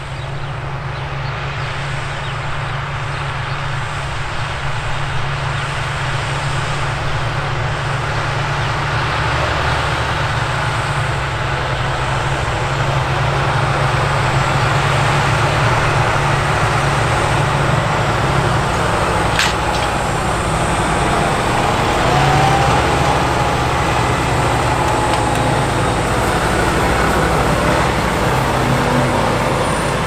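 Claas Axion 960 tractor's six-cylinder diesel running steadily under load as it pulls an eight-furrow plough through dry soil, with the noise of soil and the plough's packer roller under it. It grows louder over the first dozen seconds.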